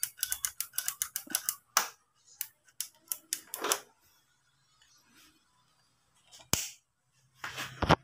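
A fast run of sharp mechanical clicks, about seven a second, then scattered single clicks and a sharp knock: the faulty push switch on the amplifier's front-panel board being worked back and forth to spread the thinner through its contacts.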